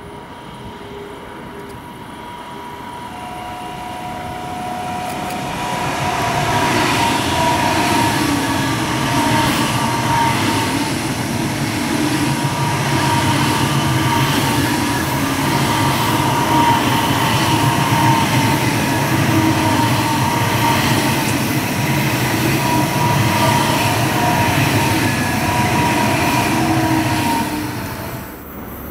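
Two coupled class 403 ICE 3 high-speed trainsets passing. The running noise swells over the first several seconds and stays loud, with a steady whine in it, through the long pass. It drops off sharply near the end as the last car goes by.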